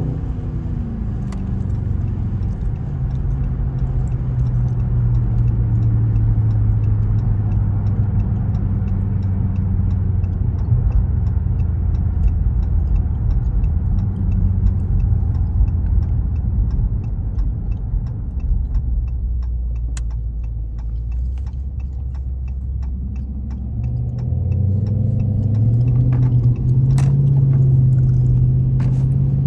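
Dodge Scat Pack's 6.4-litre HEMI V8 heard from inside the car while cruising steadily. The engine note drops away about two-thirds of the way through, then rises again as the car accelerates near the end.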